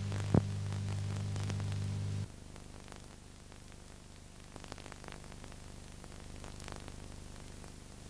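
Steady electrical hum and hiss in the soundtrack of Hi-8 videotape, with a single sharp click a moment in. About two seconds in, the hum cuts off abruptly, leaving low tape hiss with a faint hum and a few light ticks.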